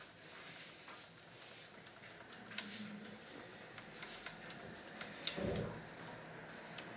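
Faint scattered clicks and taps of gloved fingers handling the plastic and metal parts of an opened VHS recorder's tape mechanism, with one louder low thump about five and a half seconds in.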